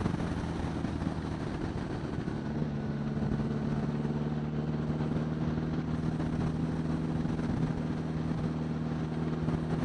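1975 Honda Gold Wing's flat-four engine running at a steady cruise, its even drone heard from the rider's helmet microphone with wind noise rushing over the mic.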